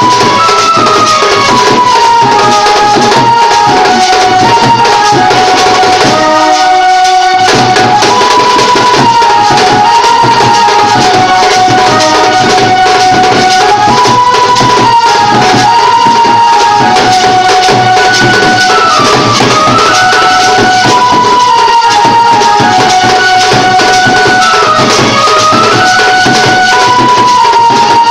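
Street band music: large bass drums beaten with sticks and a seated double-headed drum, with jingling metal hand percussion under a high, stepping melody. The drums drop out for about a second around six seconds in.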